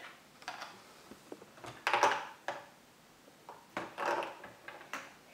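A plastic spoon scraping and knocking against a Play-Doh toy mould to loosen the modelling dough. There are two or three short scrapes and several sharp clicks.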